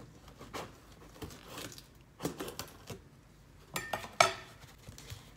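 A large knife slicing through the packing tape on a cardboard shipping box: scattered scraping and tapping of the blade on tape and cardboard, with a few sharper clicks about four seconds in.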